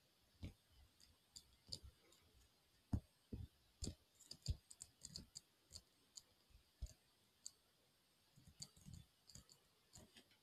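Near silence broken by scattered faint clicks and soft low knocks at an irregular pace, most of them bunched together around the middle.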